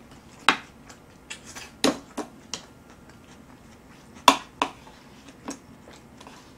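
Close-miked eating sounds: a person chewing a mouthful of black bean noodles and cabbage kimchi, with a scatter of sharp wet smacks and clicks, the loudest about four seconds in.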